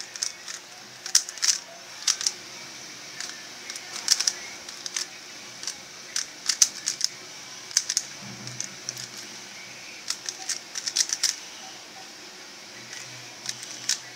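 A plastic 3x3 Rubik's Cube being turned by hand: its layers click as they turn, in quick irregular clusters with short pauses between them.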